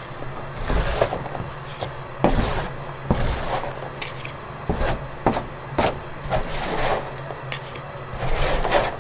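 Metal scrapers scraping and chopping crumbly brown sugar across a metal-sheet-covered table in irregular strokes about once a second. This is the stage where the cooling sugar is worked into granules.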